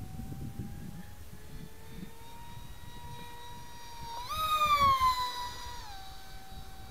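Electric brushless motor (Turnigy 2836-3200 outrunner) spinning a 5x5 APC propeller on a FunJet RC plane, heard from the onboard camera as a steady whine that creeps up in pitch. About four seconds in it jumps higher and louder as the throttle is opened, then slides back down to a lower steady pitch about a second and a half later. Wind rumbles on the microphone underneath.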